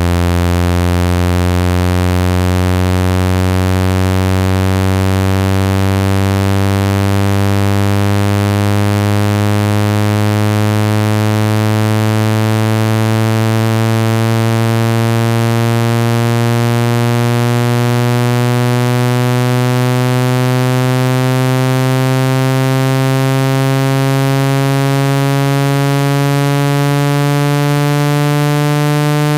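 Speaker-cleaning frequency sweep: a loud, buzzy synthesized tone rich in overtones, slowly and steadily rising in pitch. It is played at full volume to shake water and dust out of a phone speaker.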